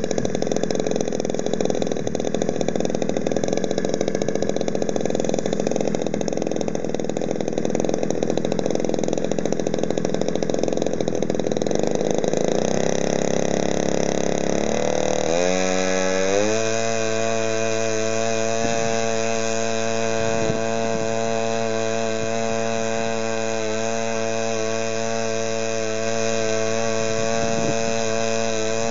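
US Engine 42cc single-cylinder two-stroke gas engine on a model airplane, spinning an 18x8-10 propeller on a ground run while its tuning is adjusted. It runs rough at lower speed, climbs in pitch in several steps, and from just past halfway holds a steady, even high-speed tone.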